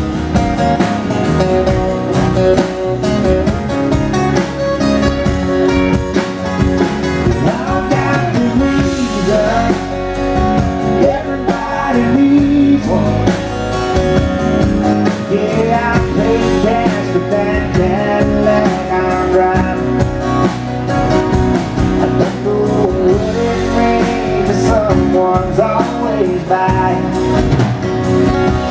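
Live band playing a country song: acoustic guitars strummed over drums and bass, with a man singing lead.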